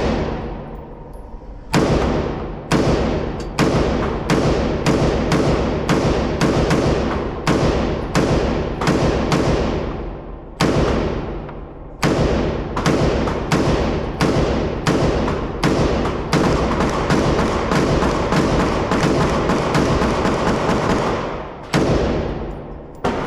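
Rapid gunfire: dozens of shots, mostly about two a second, each ringing out briefly. There is a short pause about halfway through and a few spaced shots near the end.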